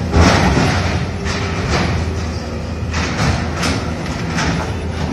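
Demolition: a heavy diesel engine running steadily under irregular crashes and clatter of broken concrete and debris as a tracked excavator tears into a damaged building.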